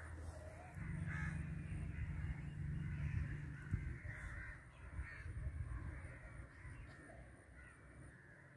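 Crows cawing now and then against quiet outdoor background, with a low hum in the first few seconds.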